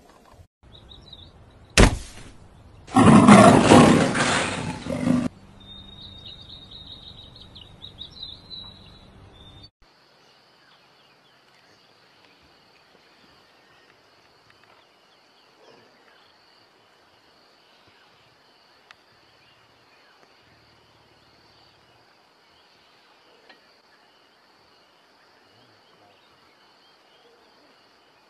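A short sharp burst about two seconds in and a loud, harsh sound lasting about two seconds, followed by a run of high chirps; then, after about ten seconds, faint bush ambience with insects trilling steadily at a high pitch.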